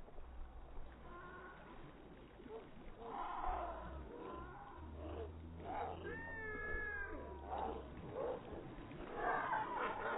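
Seagulls calling, several wailing, gliding calls that come in clusters about a third of the way in, around two-thirds in, and near the end.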